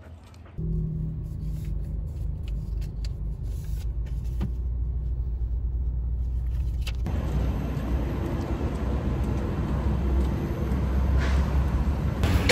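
Steady low rumble of a car's engine and tyres, heard from inside the cabin while driving in slow traffic. About seven seconds in it gives way to a louder, hissier outdoor noise over a continuing low rumble.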